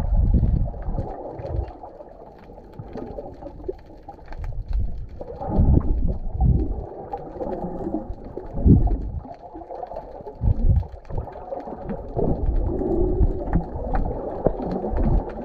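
Muffled water sloshing and rushing around a submerged action camera, rising and falling in irregular low swells, with scattered small clicks.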